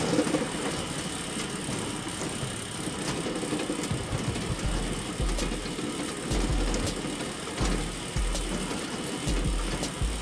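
Small electric motor driving the screw press of a cardboard model mustard oil mill, running steadily while it crushes mustard seeds, with scattered light clicks. From about halfway on there are repeated low rumbles, roughly one a second.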